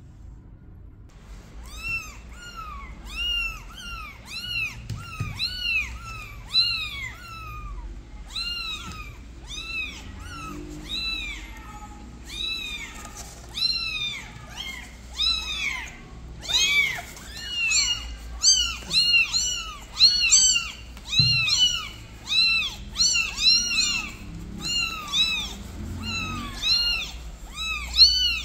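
Newborn kittens crying: a rapid run of short, high-pitched mews, about two a second. About halfway through, more voices join at different pitches and the cries overlap.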